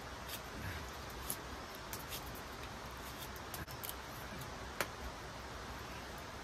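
Large knife whittling a thin strip of green bamboo, a few sharp irregular clicks as the blade bites and shaves the cane.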